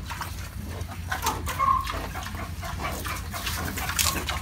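Pig feeding on green vegetable stems off a concrete floor: irregular wet chewing and crunching clicks, with one short high squeak about a second and a half in.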